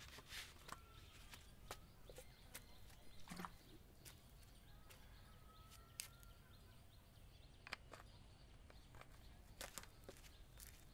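Near silence: faint room tone with scattered small clicks.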